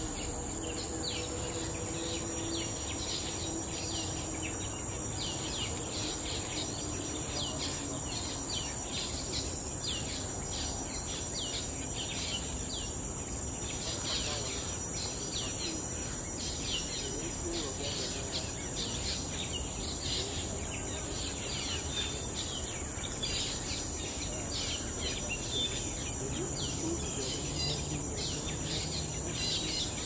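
Tropical forest ambience: a steady high-pitched insect drone, with many short, falling bird chirps repeating throughout over a low background rumble.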